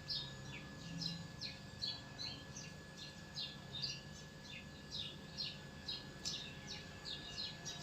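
Many small birds chirping: a busy run of short, quick, falling notes, faint, over a low steady hum.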